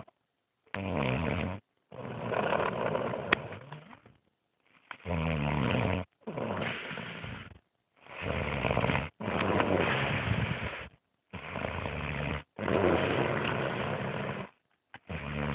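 Snoring in slow, regular breaths, about one every three to four seconds. Each breath comes in two rattling parts separated by a brief pause, with a short silence between breaths.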